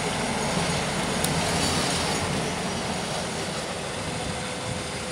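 Small diesel shunting locomotive running as it moves a rake of passenger coaches along the track: a steady engine rumble mixed with the rolling of wheels on rail, with one sharp click a little over a second in.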